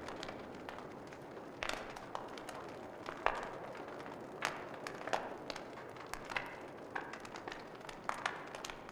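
Wood fire crackling in a fireplace: irregular sharp pops and snaps over a soft hiss.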